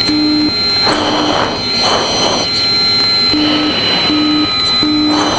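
U-2 cockpit's audible angle-of-attack tone sounding short low beeps: two near the start, then after a gap of about two seconds three more near the end. The beeps sit over steady cockpit noise with a thin high whine and a couple of brief swells of hiss.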